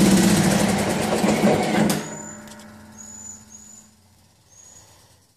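Snapper zero-turn mower engine running, then shut off about two seconds in and winding down to quiet with a fading hum.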